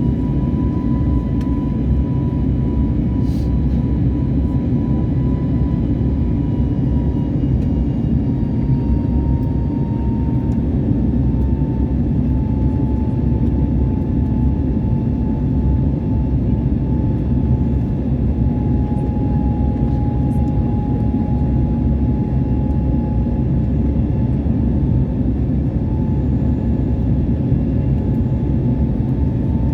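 Jet airliner engines running at high power, heard as a loud, even rumble with a thin whine on top that sinks slightly in pitch.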